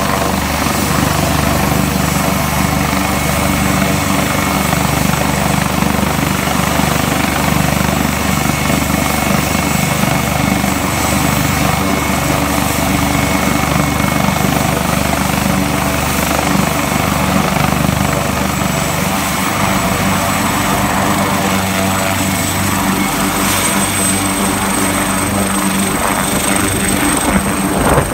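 AgustaWestland AW139 helicopter running on the ground, its twin turboshaft engines and turning main and tail rotors making a loud, steady noise. A high turbine whine rises slightly in pitch during the second half.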